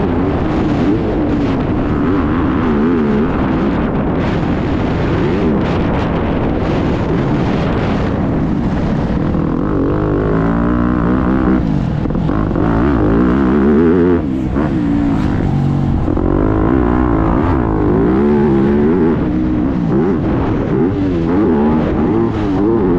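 Motocross bike engine revving hard, its pitch rising and falling again and again as the rider opens and closes the throttle.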